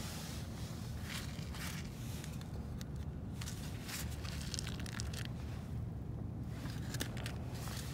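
Fingers rummaging through the gritty, sawdust-like packing in a foam tray of bait worms, giving crackly rustling in several short bursts, heaviest in the middle and again near the end, over a steady low rumble of wind.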